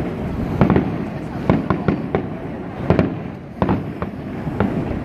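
Aerial fireworks bursting overhead: about a dozen sharp bangs in irregular clusters, some coming in quick runs of two or three.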